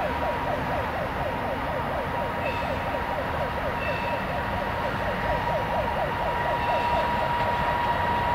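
EP2K electric locomotive hauling a passenger train as it approaches. Over the running noise there is a steady high whine and a fast repeating warble of falling squeals, which fades out near the end.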